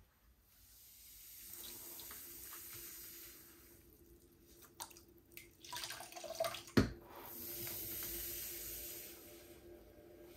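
Water running from a tap in two spells of a few seconds each, with a sharp knock just before the second spell and a low steady hum underneath.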